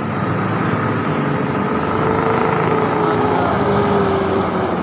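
Engine of a heavy truck or bus running on an uphill road, a steady loud drone whose note slides slowly lower through the middle.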